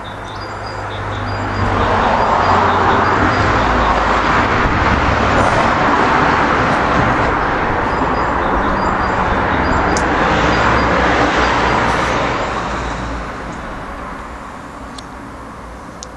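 A road vehicle going by: a broad rushing noise with a low engine hum that swells about two seconds in, holds for about ten seconds, then fades away.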